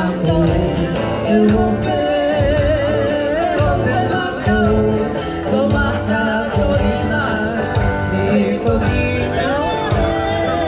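Polynesian hula song: a singing voice over guitar accompaniment with a steady bass beat.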